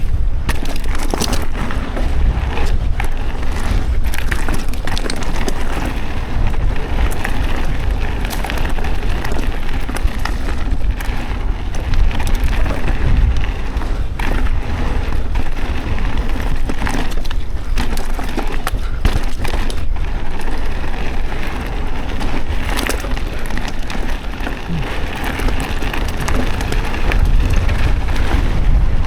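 Mountain bike being ridden along a dirt trail: tyre noise with the bike rattling and many sharp knocks and clicks over a steady low rumble.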